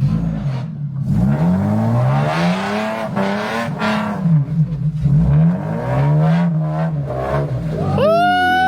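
Off-road 4x4 engine revving up and down over and over under throttle. Near the end a louder, high-pitched tone swells and falls away.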